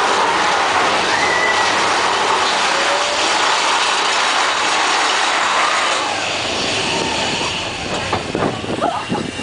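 Big Thunder Mountain Railroad mine-train roller coaster rattling and rumbling along its track, with a couple of brief wheel squeals; the noise eases a little about six seconds in.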